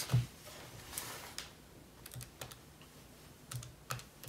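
Irregular light clicks of keys being pressed, a dozen or so spread over the few seconds, with a few soft low thumps among them.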